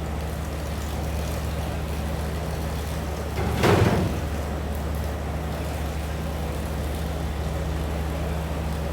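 Electric blender running steadily as it blends scent leaf, with a brief louder rush about three and a half seconds in.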